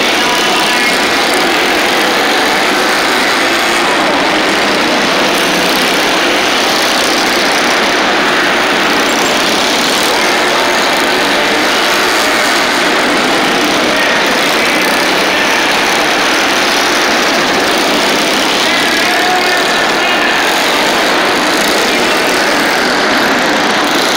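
A pack of small-engine minibikes racing together, their engines running loud and steady, with the odd brief rise and fall in pitch as a bike passes or revs.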